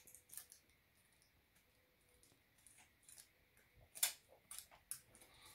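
Scissors snipping at sticky tape off a roll: a couple of faint snips just after the start, then a quick run of sharper snips from about four seconds in, the first of them the loudest.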